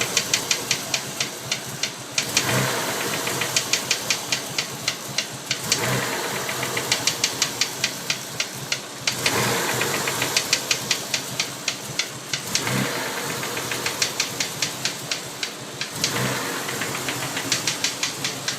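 A 1992 Mitsubishi 3000GT VR4's twin-turbo V6 idling warm with a sharp knocking that comes in spells of a second or two, about six knocks a second, returning every three to four seconds. The owner hears it from cylinder 6 near the oil filler cap. It starts only once the engine is fully warm and comes with black smoke from the tailpipe, which he takes for the engine running too rich from a bad sensor.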